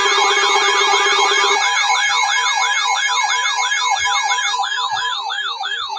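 Several electronic siren tones layered together, each sweeping up and down over and over in a fast wail, with a steady low tone that changes to a pulsing one about a second and a half in. This is an alert sound between emergency weather warnings.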